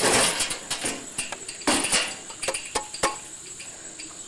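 Sheet-metal clatter and rattling as a small garden tractor's hood and engine cover are lifted and handled: two noisy clattering bursts, then a few sharp clinks.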